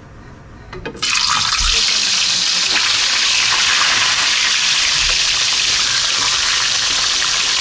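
Fish dropped into hot cooking oil: a sudden loud sizzle about a second in, then a steady frying hiss.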